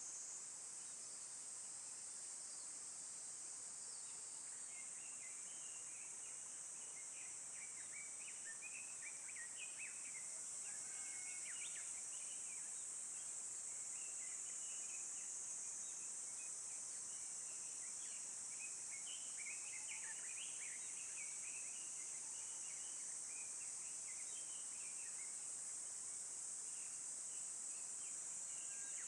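Woodland ambience: a steady, high-pitched insect chorus, with small birds chirping on and off from about five seconds in.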